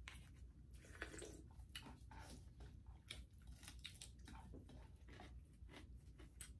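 Faint, close-up chewing and biting of food, a run of irregular soft clicks and crunches.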